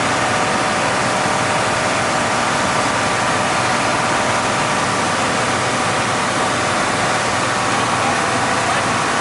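Steady drone of a river slow boat's engine, with water rushing along the hull.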